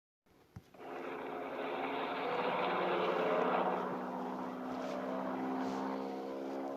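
Propeller airplane sound effect: an engine drone with a propeller buzz that fades in just under a second in and holds steady at a level pitch. A small click comes just before it.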